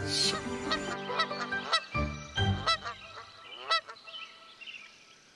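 Goose honking in a quick series of short calls that grow fainter toward the end.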